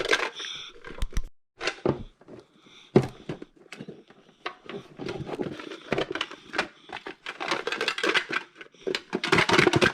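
Small toy pieces being handled: a run of irregular clicks and clatter, busiest around the middle and near the end.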